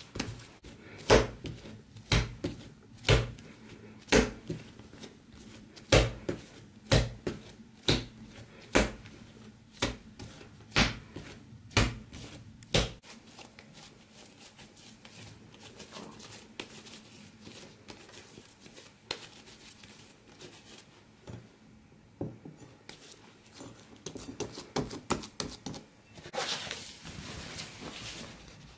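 Yeast dough being kneaded by hand on a countertop, a thud each time it is pushed and slapped down, about once a second for the first half, then softer handling. Near the end, a cloth rustles as it is laid over the dough.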